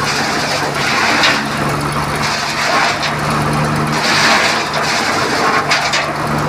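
Chainsaw engine running steadily under load while cutting wood, with the cutting noise swelling and fading.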